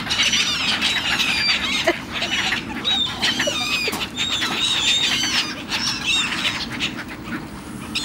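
A flock of black-headed gulls calling, many short high squawking calls overlapping one another without a break.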